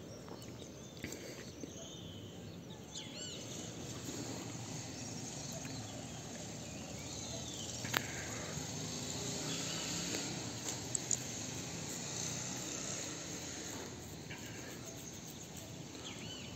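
A few short, faint chirps, spread across several seconds, over steady outdoor background noise, with one sharp click about eight seconds in.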